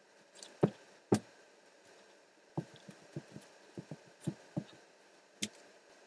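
Scattered thumps and knocks: two loud ones close together about a second in, then a string of softer ones and a last one near the end.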